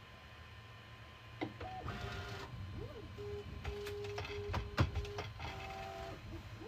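Bambu Lab A1 Mini 3D printer's stepper motors whining in steady tones that step and glide in pitch as the axes move, with several sharp ticks, starting about a second and a half in. This is the printer's automatic start-of-print routine, which includes a multi-point bed level check.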